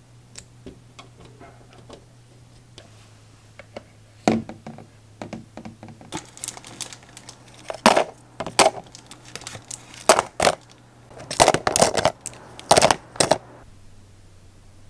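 Small hard objects being handled and set down: a run of light clicks and knocks that turns into several sharp clacks in the second half.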